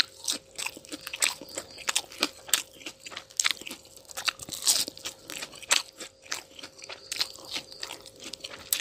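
A person eating instant noodles, close-miked: a fast, irregular run of crunching and chewing sounds, several bites a second.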